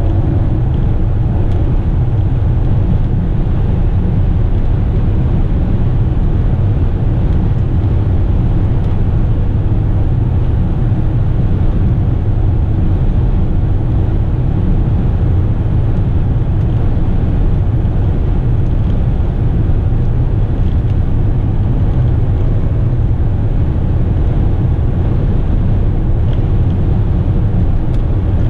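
Steady low drone of a fully loaded Western Star tipper truck's diesel engine and tyres cruising at highway speed, heard from inside the cab.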